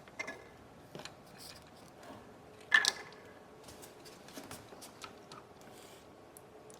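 Small clicks and taps of tools and parts being handled while an iPod nano is taken apart, with a sharper click about three seconds in.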